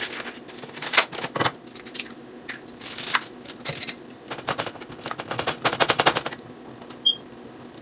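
Wire whisk clicking and rattling against a mixing bowl in quick bursts as brownie batter is whisked by hand.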